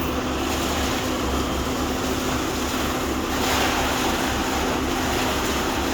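Steady low engine rumble under a continuous rushing noise, with wind on the microphone.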